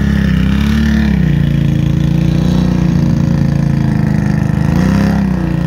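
ATV engine running under load while pushing through deep clay mud. Its revs climb about half a second in, drop back a moment later, then rise again near the end.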